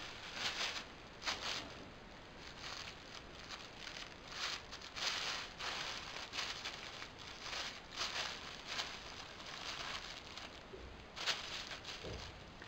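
Thin plastic carrier bag crinkling and rustling in irregular bursts as a kitten burrows into it and paws at it.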